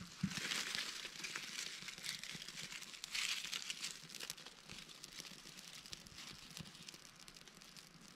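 Birch-bark tinder and small kindling faintly crackling and crinkling as a small campfire catches, with a hissy swell about a second long just after the start and again about three seconds in.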